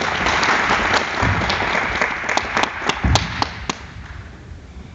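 Audience applauding, loud at first and dying away over about four seconds, with a couple of low thuds in between.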